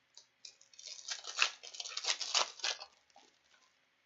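Foil wrapper of a hockey card pack crinkling and tearing as it is opened by hand, a quick run of crackly rustles lasting about two seconds.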